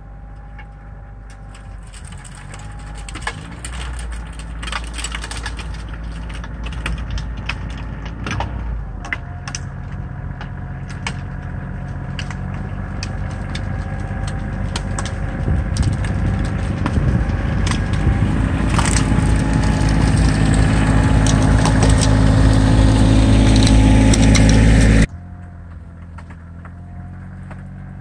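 Kioti CK2610 compact tractor's diesel engine running under load while its three-point snowblower throws snow, with many sharp crackles mixed in. It grows steadily louder as the tractor comes closer, then drops off suddenly near the end.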